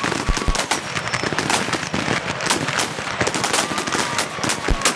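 Black-powder muzzle-loading muskets of a shooting team firing at will along the line, many shots a second, irregular and overlapping.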